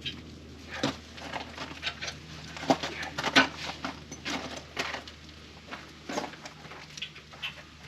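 A series of sharp, irregular knocks and clicks, about seven of them spaced unevenly, the loudest about three and a half seconds in, over a faint low steady hum.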